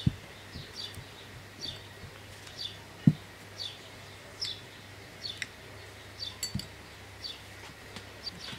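A bird chirping over and over, short downward-slurred calls about once a second. Bowls and kitchen items are set down on a cloth-covered table with a few soft thumps, the loudest about three seconds in.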